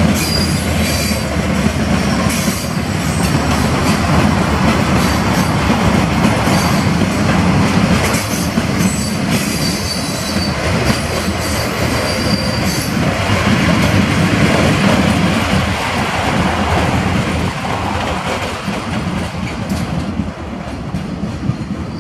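Freight train of tank wagons behind a series 310 locomotive rolling slowly along the track, the wheels rumbling on the rails with brief high-pitched wheel squeals a few times. The sound eases off near the end.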